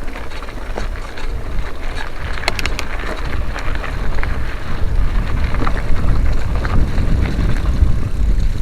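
Wind buffeting the camera microphone with a heavy low rumble, growing stronger about halfway through, and scattered rattles and clicks from a mountain bike on a rough dirt trail.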